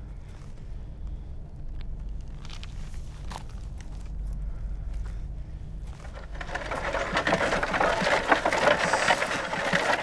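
A low rumble, then from about six and a half seconds in a wooden-wheeled cart rolling over rough ground, a dense crackling and scraping rattle that grows louder.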